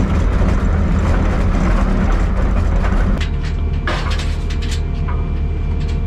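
Skid steer engine running steadily at idle, with a few sharp clanks around the middle and a steady higher whine joining about halfway through.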